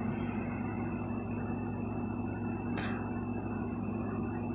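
Steady low room hum with a thin high whine over faint hiss, and one short breathy rustle about three seconds in.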